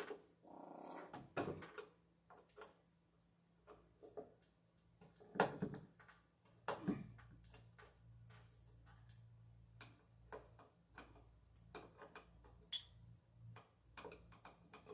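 Metal ceiling electrical box being screwed to a wooden joist: scattered knocks and clicks of handling, with a low steady grinding hum from about halfway through as a screw is driven into the wood.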